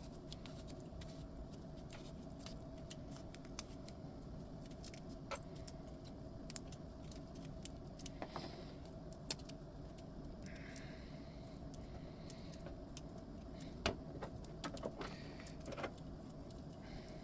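Handling noises from wrapping packing foam around a capacitor and fitting a metal capacitor clamp: scattered small clicks and clinks with brief rustling, the sharpest clicks about nine and fourteen seconds in, over a steady faint hum.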